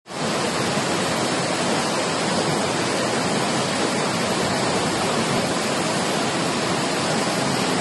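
Floodwater rushing down a street as a fast torrent, a steady, dense wash of water noise with no let-up.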